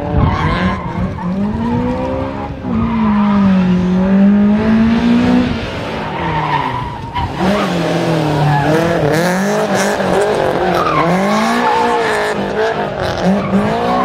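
Fifth-generation Honda Civic hatchback's four-cylinder engine revving hard, its pitch rising and falling again and again, with tyres squealing and skidding as the car slides around the cones.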